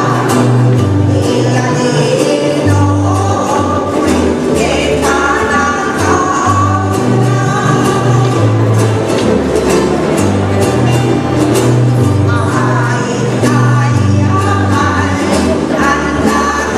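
Old-style Hawaiian music played live by a chorus of women singing together over strummed ukuleles, which keep a quick, steady rhythm. A bass line steps from note to note underneath.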